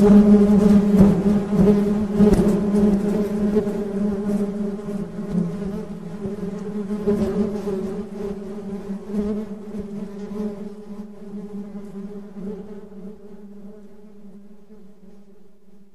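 Honey bees buzzing in a steady, low drone, with faint crackling early on; the buzz fades away gradually through the second half.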